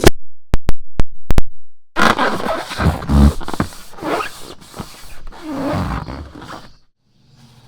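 A few sharp clicks, then about five seconds of wet squelching and squishing as slime is squeezed and worked, with uneven low surges; it stops suddenly near the end.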